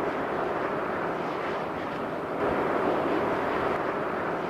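Steady rushing noise of a Boeing 747's four jet engines on approach to land, swelling slightly about two and a half seconds in.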